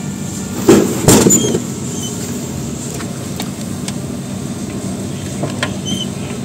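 A drinks vending machine drops a can down its chute, making a couple of loud knocks about a second in. A few light clicks follow as the plastic flap of the pickup bin is pushed open to take the can out, over a steady background hum.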